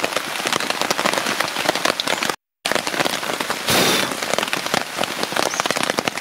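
Steady rain, a dense patter of raindrops on surfaces, with a brief louder hiss a little past the middle. The sound drops out for a split second about a third of the way in.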